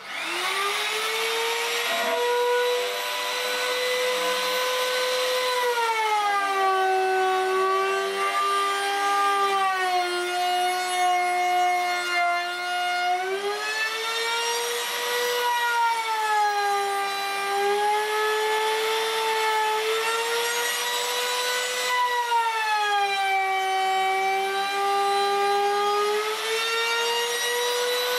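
Compact electric trim router starting up and then running at high speed with a steady whine while its bit cuts a handle slot into the end of a pine board. The pitch sags several times, around 6 to 13 seconds in, again near 17 and near 24 seconds, as the bit bites into the wood under load, then climbs back.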